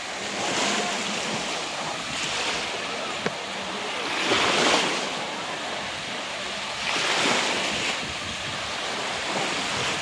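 Lake Erie waves breaking and washing in over shallow water onto a sandy beach, swelling in surges every two to three seconds, with wind blowing across the microphone.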